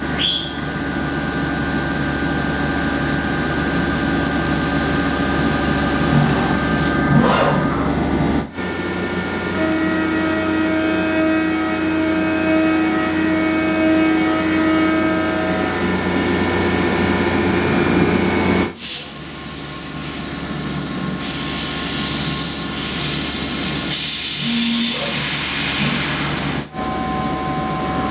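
CNC machine tool milling metal: a steady spindle whine and cutting noise over the hiss of coolant spray. The sound changes abruptly three times as one machining shot gives way to the next.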